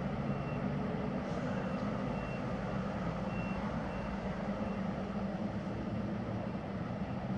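Distant vehicle engine running steadily, with a reversing alarm giving short high beeps that repeat through the first few seconds and then stop.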